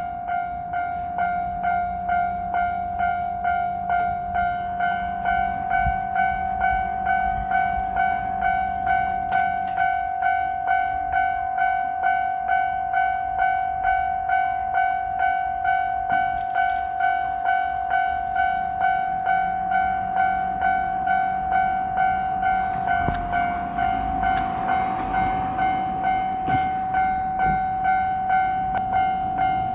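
Japanese level-crossing warning bell ringing its steady "kan-kan" at an even pace. A JR Shikoku 8000 series electric limited express passes over the crossing from about 23 to 27 seconds in.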